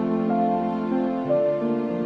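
Background music: a slow, soft melodic piece with sustained notes changing every half second or so.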